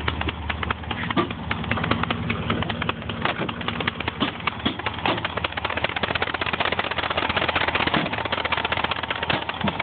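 1958 Ford Custom 300's engine idling just after start-up: a steady low hum under a rapid, dense clatter of ticks.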